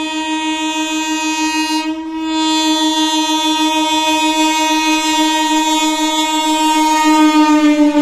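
An Indian Railways EMU local train's horn is held in one long continuous blast as the train approaches. It dips briefly about two seconds in, then sounds louder, and starts to drop slightly in pitch near the end as the train draws level.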